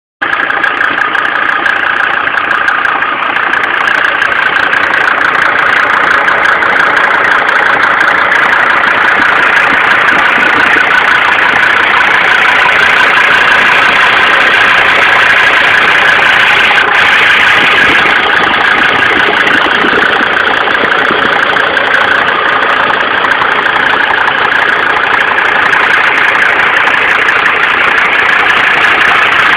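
Mercedes W124 2.5-litre five-cylinder turbo diesel engine idling steadily.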